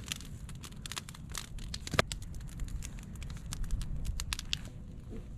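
Wood campfire crackling, with sharp irregular pops throughout and one louder pop about two seconds in.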